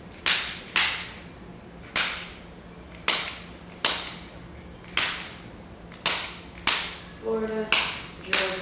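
About a dozen sharp, alike snaps, roughly one a second, each dying away quickly, made during a chiropractic treatment.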